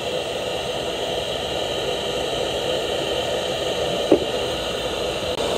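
Steady whir of a running dental lab motor, an even noise without let-up, with a single short knock about four seconds in.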